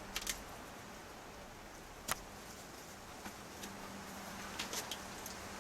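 A few sharp clicks and taps over a faint steady hum: a quick cluster at the start, the loudest single click about two seconds in, and a few more near the end.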